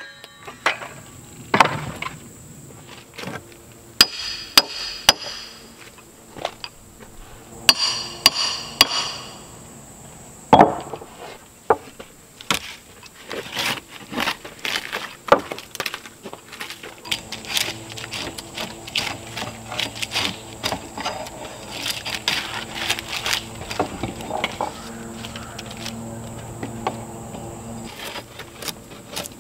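Hand tools working bark off a log: a string of sharp wooden knocks and whacks, with stretches of scraping.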